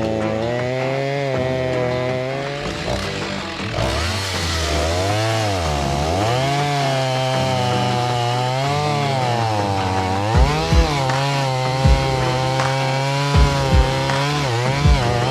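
Stihl MS290 chainsaw cutting through wood, its engine pitch dipping and rising again and again as the chain loads up in the cut and frees. Background music runs under it, with short low thumps from about ten seconds in.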